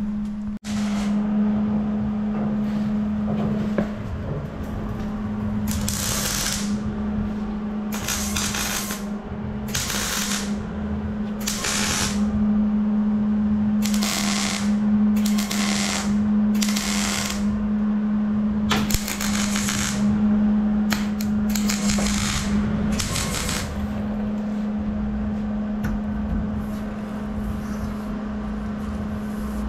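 Wire-feed (MIG) welder stitch-welding a sheet-steel firewall: about ten crackling bursts of a second or so each, with short pauses between them. A steady low hum runs underneath throughout.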